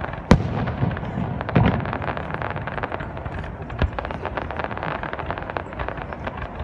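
Fireworks bursting: continuous crackling, with a sharp bang just after the start, a deeper boom about a second and a half in, and another sharp bang a little before four seconds in.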